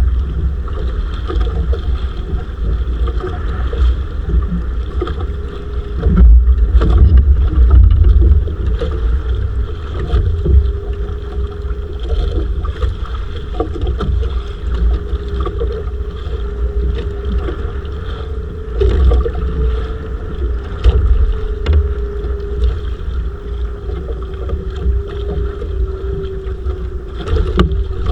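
Wind buffeting the microphone aboard a bangka at sea, in gusts. Under it runs a steady mid-pitched drone, with a few scattered knocks.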